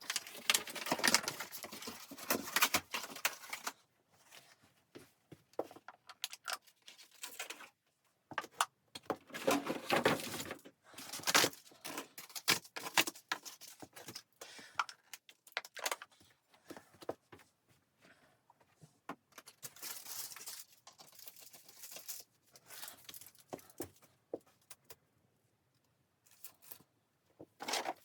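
Objects being handled by hand: irregular rustling and crinkling with many small clicks and knocks, coming in busy spells with short quiet gaps between them.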